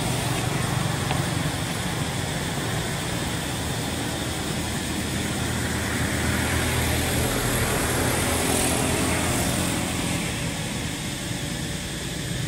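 Road traffic noise: motor vehicles passing on the road, with a steady low hum that swells for a few seconds midway as a motorbike goes by.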